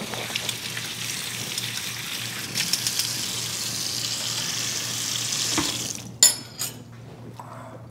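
Kitchen tap running steadily as something is rinsed under it, shutting off about six seconds in, followed by a couple of sharp clicks.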